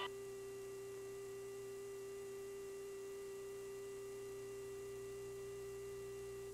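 Steady electrical hum on a helicopter's intercom audio, one unchanging mid-pitched tone with faint higher tones above it; the missile launch itself is not heard.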